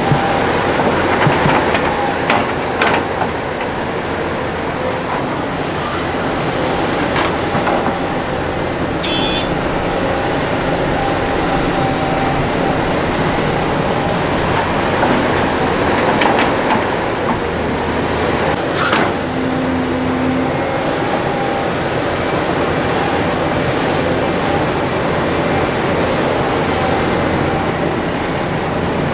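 Crawler excavator at work: its diesel engine running steadily under load with a faint steady whine, and a few sharp metallic clanks from the bucket and boom.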